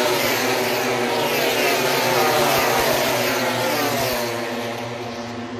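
Grand Prix race motorcycles passing at speed down the straight, their high engine notes falling in pitch as they go by and fading over the last second or so.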